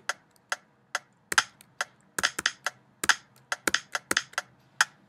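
Computer keyboard keys tapped in a quick, uneven rhythm, sharp clicks several a second, as a kick drum part is played in on the keyboard.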